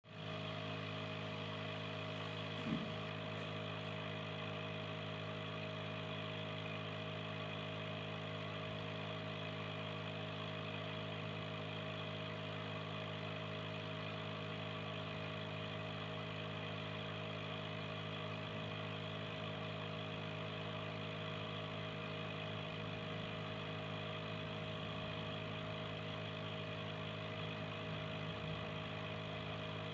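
Aquarium air pump humming steadily, with air from an air stone bubbling up through the water. A single brief knock sounds about three seconds in.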